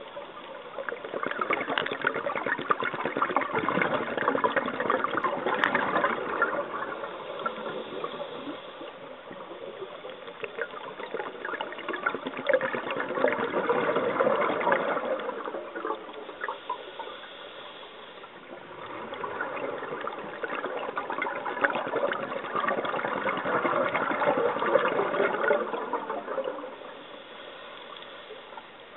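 Scuba exhaust bubbles heard underwater, a crackling, bubbling rush that comes in three long swells with quieter gaps between, following a diver's exhalations through the regulator.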